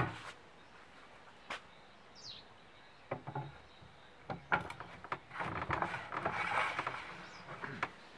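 Steel parts of a welded grinder stand being handled: a sharp knock at the start, scattered clicks, then a few seconds of metal scraping from about five seconds in, typical of a square steel extension tube sliding in its sleeve.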